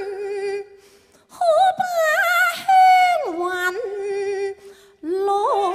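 Female Cantonese opera singer holding long drawn-out notes with a wide vibrato, a wordless melismatic line. There is a short break about a second in, the pitch slides down about three seconds in, and a new phrase starts near the end.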